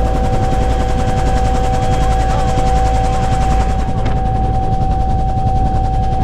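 Bell UH-1 Huey helicopter running steadily: a fast, even rotor beat under a constant turbine whine.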